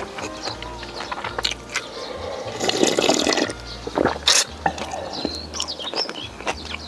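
Close-up eating sounds: wet chewing and sharp clicks, with a longer slurp of liquid about three seconds in.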